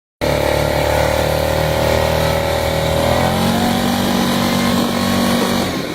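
Yamaha Grizzly 600 ATV's single-cylinder four-stroke engine running under way, its pitch rising about three seconds in as it picks up speed, then easing off near the end.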